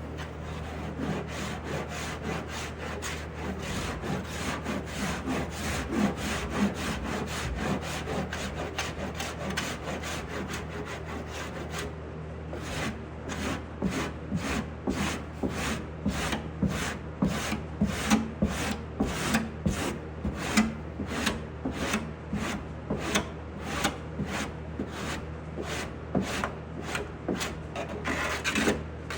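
Body filler on a steel car door being shaped by hand with an abrasive block or file, a dry scraping rasp. It is continuous at first, then from about twelve seconds in it breaks into distinct back-and-forth strokes, about two a second.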